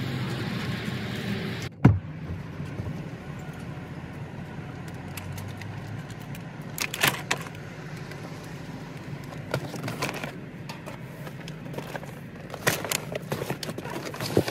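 Groceries being loaded from a wire shopping cart onto a car seat: scattered knocks and rattles as packages are lifted out and set down, over a steady outdoor background hum.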